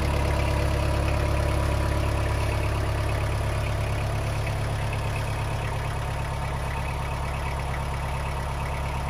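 Mitsubishi MT245 compact tractor's four-cylinder diesel engine idling steadily, getting slightly quieter about halfway through.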